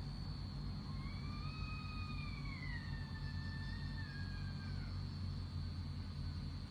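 A single long, wailing cry with a clear pitch begins about a second in. It rises slightly, then slides slowly downward over about four seconds before fading. This is the unexplained night-time scream, which the uploader cannot place as either a person or a spirit. Under it runs a steady low rumble and a thin, constant high tone.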